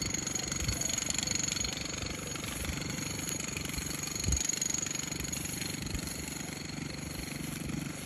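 An engine running steadily in the background, a rapid low throb, with a brief thump about four seconds in.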